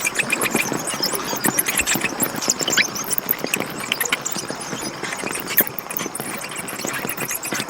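A group of bats squeaking and chittering: a dense, continuous stream of short high squeaks and clicks, with a few brief sliding squeals.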